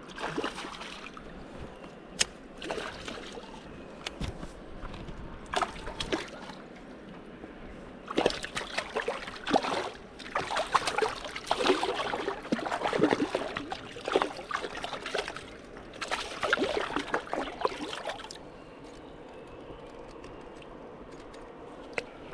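Water splashing and sloshing in irregular bursts, busiest through the middle, over a steady low hiss, with a few sharp clicks in the first seconds.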